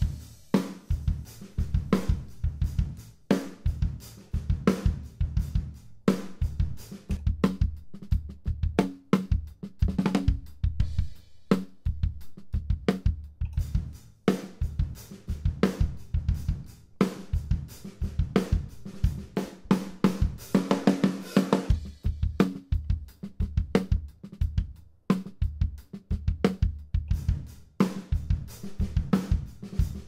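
A DW acoustic drum kit being played in a steady groove of kick, snare, hi-hat and cymbals. The close kick and snare microphones are blended with compressed room microphones, giving the snare and kick extra length and size.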